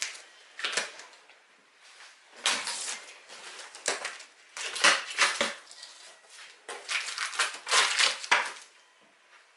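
Cardboard shipping box and packaging being handled and opened: a series of short scraping and rustling bursts with quiet gaps between.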